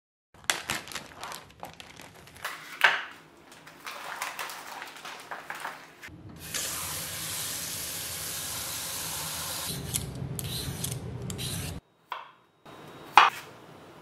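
Cold water from a kitchen tap running into a stainless steel bowl over a vacuum-sealed pack of frozen beef: a steady rush for about five seconds that cuts off suddenly. Before it come scattered clinks and knocks of handling, and near the end there is a single sharp knife chop on a wooden cutting board.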